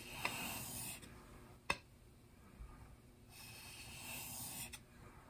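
Steel chisel blade rubbed along a wet 6000-grit Japanese waterstone: two soft, gritty strokes, one at the start and another about three and a half seconds in, with a single sharp click between them. It is the flat top face being honed to raise a small burr at the edge.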